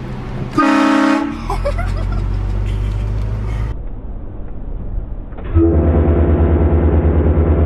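A vehicle-mounted air train horn, fed by an onboard compressor, gives one short blast about half a second in. About five and a half seconds in, a loud, low, pulsing drone starts and runs on.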